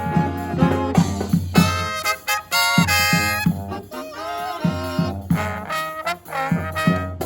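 Live marching brass band playing a Christmas tune, with brass chords over a steady drum beat.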